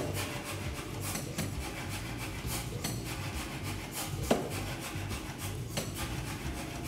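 Repeated scraping strokes of a long-handled steel hand tool dragged along a red-hot steel bar on the anvil, rubbing the forge scale off, with a sharp metal clack about four seconds in.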